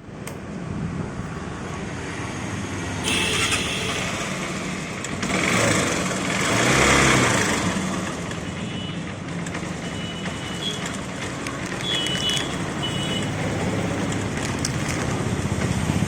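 Honda Shine motorcycle's single-cylinder four-stroke engine running, revved up briefly about five to seven seconds in, with the rattle of a worn or slack timing chain.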